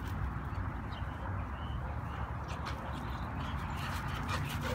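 Outdoor background of a steady low rumble, with faint, brief high chirps and ticks scattered through it.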